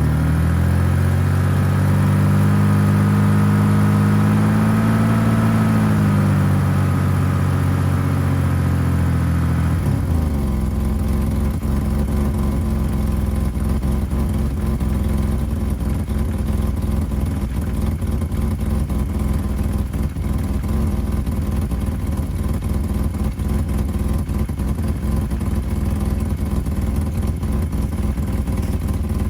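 1985 BMW 535i's M30 straight-six is held at raised revs for about ten seconds after a cold start, easing off slightly, then drops back to a steady idle. The car has an exhaust leak where the headers meet the catalytic converter.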